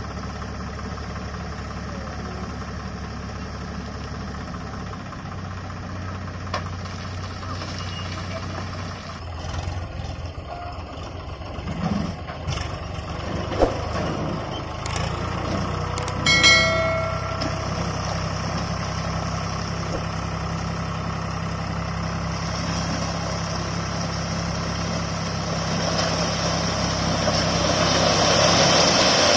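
Swaraj 744 FE tractor's diesel engine running steadily while the hydraulic tipping trolley is raised. A brief ringing tone sounds a little past halfway. Near the end comes a swelling rush as the load of stones slides out of the tipped trolley.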